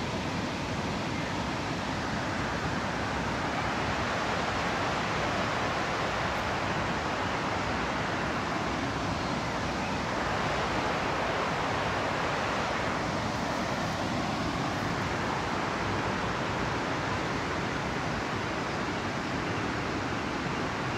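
Steady rushing wind noise buffeting the phone's microphone outdoors, swelling a little about halfway through.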